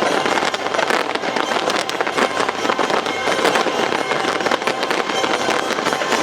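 A dense fireworks barrage: many shells bursting and crackling in rapid, unbroken succession.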